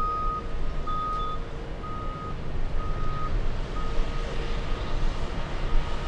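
An apron vehicle's reversing alarm sounds single-tone beeps about once a second, fainter toward the end. Beneath it runs the low, steady rumble of a Boeing 777-200ER's jet engines at take-off power as it climbs away.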